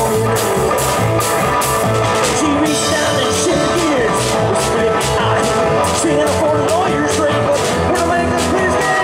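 Live rock and roll band playing: a man singing over electric guitar, with a steady drum beat of about three hits a second.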